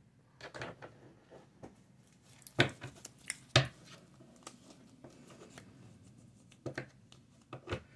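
Tarot cards being handled on a tabletop: scattered light taps, slides and clicks, with two sharper snaps about a second apart near the middle.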